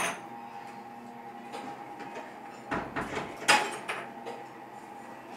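A few knocks and clatters, loudest about three and a half seconds in, over a steady hum in a small room.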